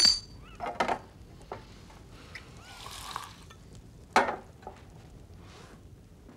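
Crystal glassware clinking: a decanter's glass stopper rings sharply at the start. A drink is then poured into a tumbler, and a few seconds in a soda siphon gives a short squirt into it.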